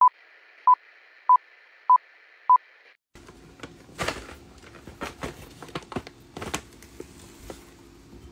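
Film-countdown leader beeps: five short, loud beeps at one pitch, about 0.6 s apart, over a faint hiss. After about three seconds they give way to a Djungarian hamster rustling and scratching in wood-shaving and shredded-paper bedding, with scattered clicks over a low steady hum.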